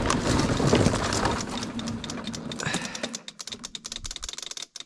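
ATV's electric starter cranking the engine without it catching, the cranking weakening into a fast, fading ticking about three seconds in as the battery runs flat.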